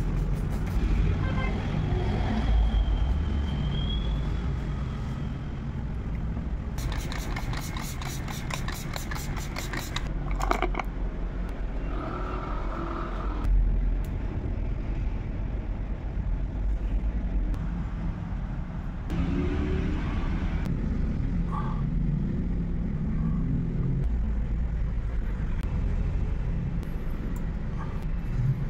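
Steady low rumble of passing road traffic, with scattered light metallic clicks and scrapes of hand work on a bicycle hub. About a quarter of the way in comes a run of rapid, even clicking lasting about three seconds.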